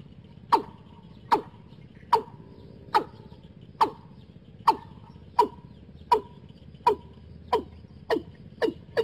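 Watercock calling: a steady series of short, loud notes, each falling in pitch, about one every 0.8 seconds, quickening to about two a second in the last second or so. The calls are used to lure a wild watercock into a trap.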